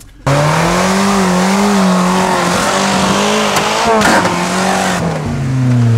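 Off-road 4x4's engine running hard at high revs under load, its pitch wavering up and down; about five seconds in the revs fall to a lower, steady note.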